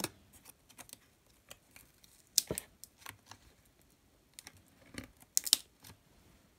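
Fingers picking at the torn, peeling paper edge banding of a wooden drawer: short dry crackles and crinkling scrapes, with two louder bursts about two and a half and five and a half seconds in.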